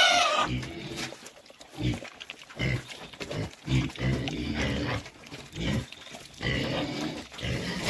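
Piglets grunting repeatedly as they feed together at a trough, with a short squeal right at the start.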